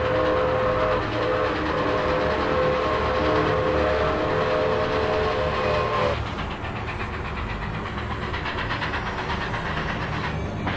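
Train sound effect: a steam-style train whistle holds a chord of several steady tones over the rumble of the train, with a brief break about a second in. About six seconds in the whistle stops, and the train's rumble and rhythmic wheel clatter carry on.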